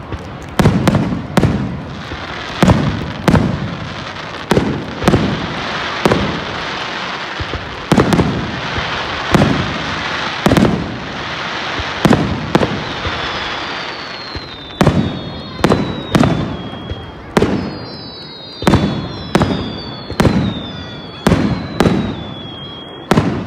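Aerial fireworks going off in rapid succession, a sharp bang every half second to a second, with a steady crackle filling the gaps in the first half. From about halfway on, whistles falling in pitch sound between the bangs.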